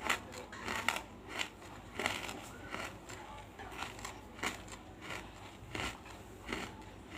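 Chalky lumps of banslochan (tabashir, bamboo silica) crunching and crackling as they are bitten and crushed in the mouth, with sharp crunches at an irregular pace, one or two a second.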